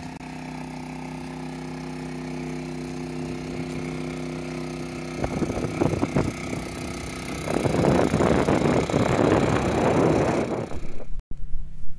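GenMax GM3300i inverter generator's 145cc four-stroke engine running steadily under about an 1800-watt load. From about five seconds in, a louder rushing noise builds over the hum, then stops abruptly shortly before the end.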